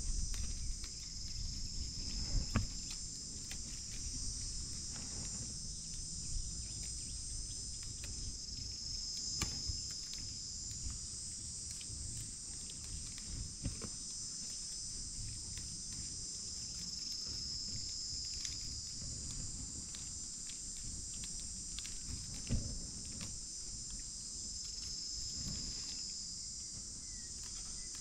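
A steady, high-pitched insect chorus buzzes on without a break. Scattered close crackles and clicks sound through it, with one sharper knock late on.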